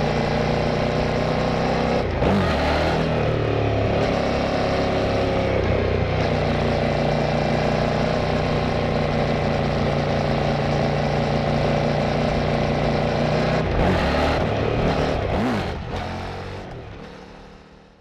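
Kove 800X Pro adventure motorcycle's parallel-twin engine and exhaust running at a steady pace under way, with wind noise. The engine pitch dips and rises briefly about two seconds in and again near the end. Then the sound fades out.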